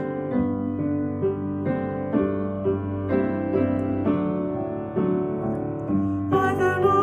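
Piano playing a hymn accompaniment, an instrumental stretch of struck chords. Near the end a singing voice comes back in over the piano.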